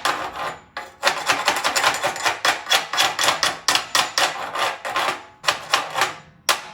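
Rapid metal-on-metal hammer taps, about four a second, each ringing briefly, after a single strike and a short pause near the start: a chipping hammer knocking slag off a fresh flux-core weld bead on steel.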